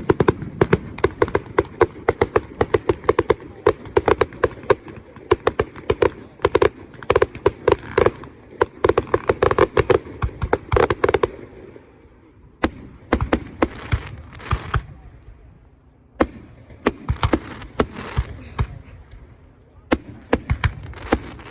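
Fireworks going off: a rapid string of sharp bangs for about eleven seconds, then thinning to scattered bangs with short pauses.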